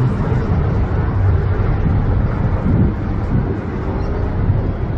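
Loud, steady low rumble of city traffic, with a faint tone rising above it in the second half.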